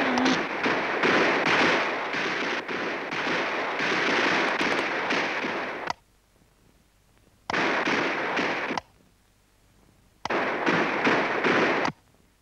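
Cartoon sound effect of a loud rushing, crackling blast from the electric fan running. It runs for about six seconds and cuts off, then comes back in short bursts of a second or so that start and stop abruptly as the on/off switch is flicked.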